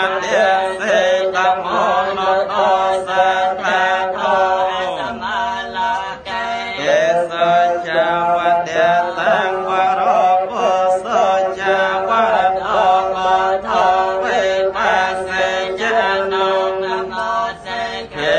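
Theravada Buddhist chanting, recited steadily syllable by syllable. About five seconds in, a phrase ends on a long falling note, and the chant resumes after a short breath.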